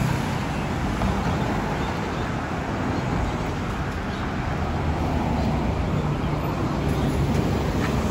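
Scania K230UB diesel city bus approaching and pulling in to a stop, its engine a steady low rumble mixed with passing road traffic, growing slightly louder as it draws alongside.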